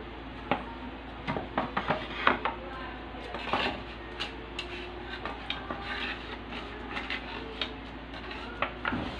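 Silicone basting brush and wooden cedar plank tapping and knocking against a frying pan while the plank is brushed: an irregular scatter of light clicks and taps over a steady low hum.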